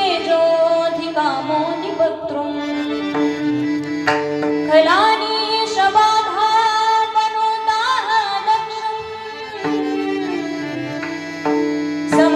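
Indian devotional kirtan music: a voice singing a wordless melodic line with sliding rises in pitch, over steady held drone notes and tabla.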